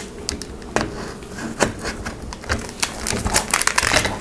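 Hands handling hard plastic gimbal parts: scattered clicks, knocks and rubbing as the DJI Ronin S battery grip is fitted onto the gimbal, with the clicks coming thicker near the end.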